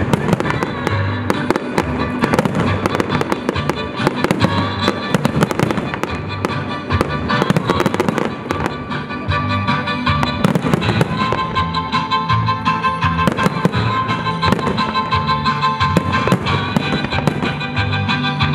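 Aerial firework shells bursting in rapid, continuous bangs and crackle, with music playing underneath.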